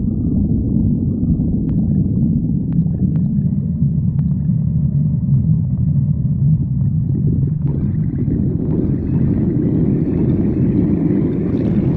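Loud, continuous low stomach growling and rumbling from a hungry stomach, with a few faint clicks in the first few seconds and a brighter, hissier gurgling layer joining about eight seconds in.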